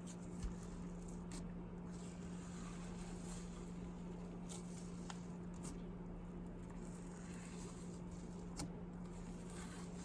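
Slime being handled: a few faint, sharp clicks and soft crackles over a steady low hum.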